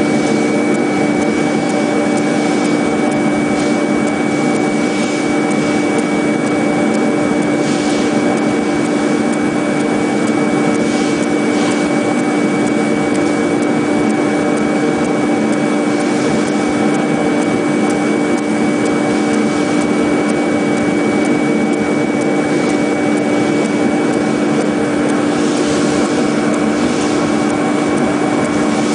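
XCX-1600 CNC contour foam-cutting machine running while its wire cuts a wavy profile into a block of mattress foam: a steady mechanical hum with a strong low tone and a thin high whine above it. A few brief hissy swishes come and go.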